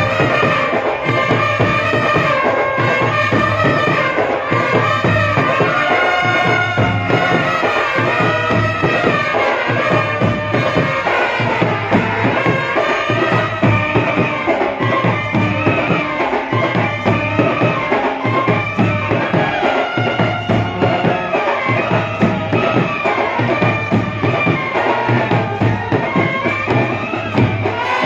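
Brass band playing live: saxophones, trumpets and euphoniums carry a melody over a steady beat of bass drums, snare and cymbal.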